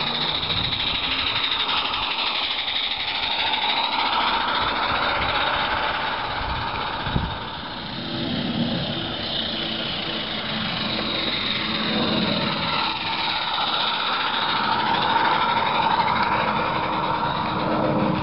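A 16 mm scale live-steam model locomotive hissing steam steadily, with a brief dip about eight seconds in.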